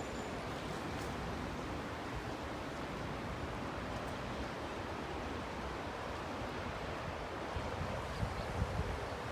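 Steady rushing of the typhoon-swollen Tama River's water, with a few light wind gusts on the microphone near the end.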